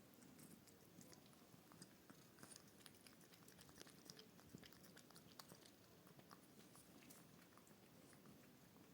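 Scottish Fold cat chewing, faint and close: many small irregular crunching clicks.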